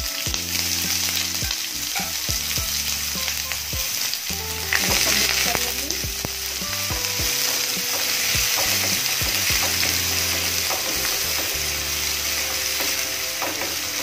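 Chopped onions sizzling in hot oil in a non-stick kadhai, with a steady hiss, while a spatula stirs them and scrapes over the pan in short strokes. The onions have just gone in with cumin, mustard seeds and curry leaves and are starting to fry on a low flame.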